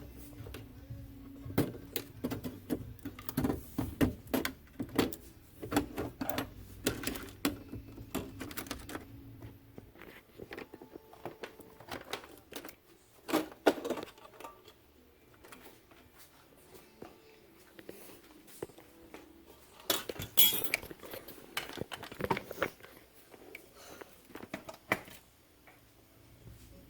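Irregular small clicks, taps and light clatter of tools and parts being handled as a flat-screen TV is taken apart, with a faint steady hum in the first several seconds.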